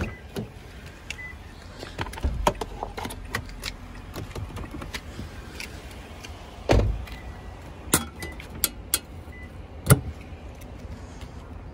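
Car-body handling sounds on a 2017 Toyota Camry: a key fob jangling and small clicks, a car door shutting with a heavy thump about seven seconds in, and a sharp click near the end as the fuel filler door is pressed.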